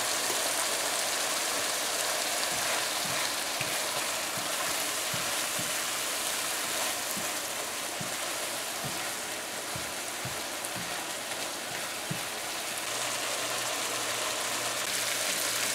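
Curry masala paste sizzling and bubbling in hot oil in a frying pan, a steady sizzle with a few faint pops.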